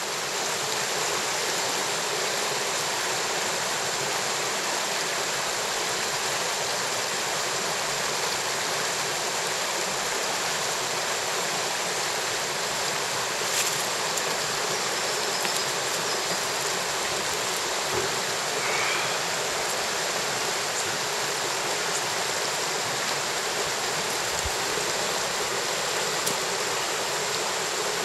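Mountain stream water running steadily over rocks, with a few faint clicks about halfway through.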